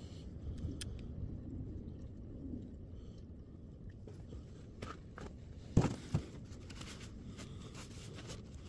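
Two sharp metal knocks close together about six seconds in, with a few light clicks around them, under a low steady rumble: a socket on an extension bar being worked in toward the generator engine's rear spark plug.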